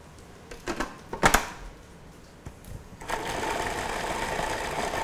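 A couple of sharp knocks about a second in, then a countertop food processor motor switches on about three seconds in and runs steadily with a constant whine, chopping a roasted red pepper, caper and garlic mixture.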